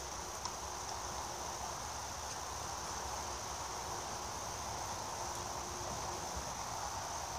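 Steady high-pitched insect chirring, with a low rumble underneath.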